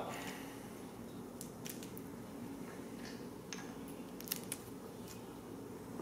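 A scatter of faint clicks and ticks from hands working the cable in and out of a BMW E36 ASC throttle actuator's plastic housing, starting about a second and a half in, over a steady low hum.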